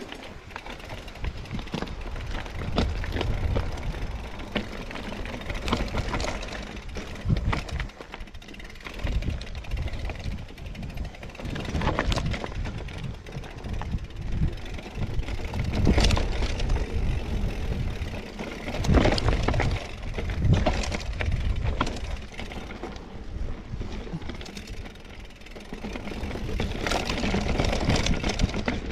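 Scott Spark RC mountain bike riding down a rough rocky trail: tyres rolling and crunching over stones, with frequent knocks and rattles as it hits bumps.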